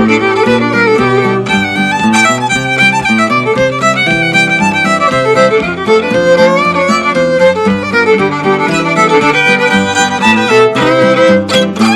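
Old-time fiddle tune: a fiddle playing a quick bowed melody over acoustic guitar accompaniment.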